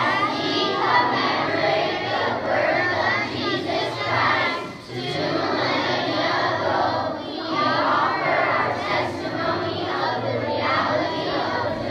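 A large group of children and teenagers reciting a text aloud in unison, many young voices speaking together in chorus.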